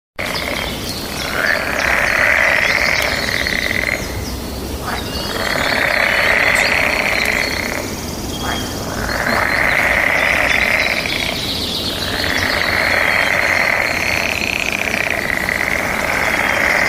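A loud, buzzing animal chorus that swells and fades in waves about every three and a half seconds, over a steady high buzz.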